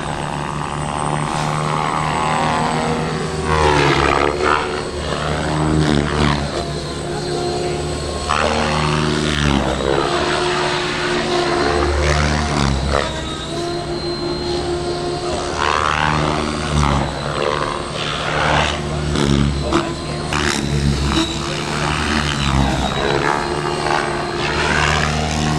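Electric radio-controlled helicopter in flight, its rotor and motor whine sweeping up and down in pitch as it makes repeated passes, about five times, over a steady low rotor drone.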